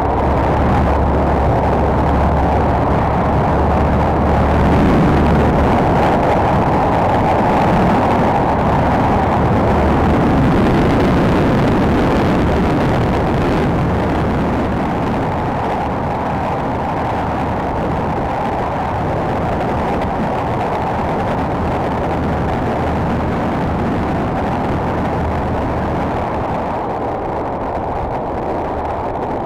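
Steady wind rush over the microphone mixed with the Royal Enfield Continental GT 535's single-cylinder engine running at high speed. It gets slightly quieter after about the halfway point.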